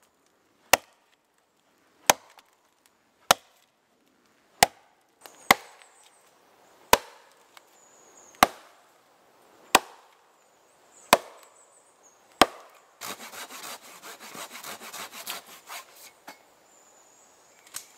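Axe chopping into the base of a slender standing tree: about ten sharp strikes, a little over a second apart. Then about three seconds of dense cracking and splintering as the cut trunk gives way and is pushed over.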